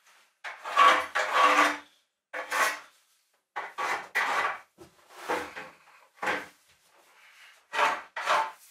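A run of short scraping and rubbing sounds on wood, about eight in a row with short gaps, as a person shifts on his knees along a plywood and timber boat floor.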